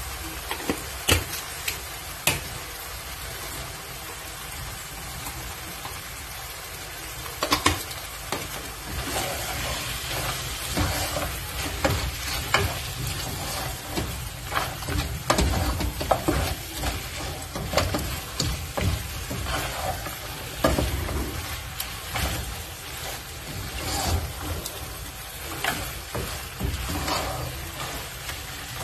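Beef and tomato mixture frying and sizzling in a pot while a wooden spoon stirs and scrapes through it, knocking against the pot. There are a couple of sharp taps in the first few seconds, and the stirring grows busier from about eight seconds in.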